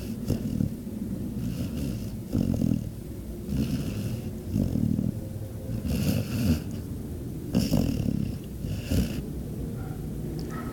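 Golden retriever snoring in deep sleep: a low rumbling snore on each breath, repeating about every one to two seconds, some breaths with a hiss through the nose.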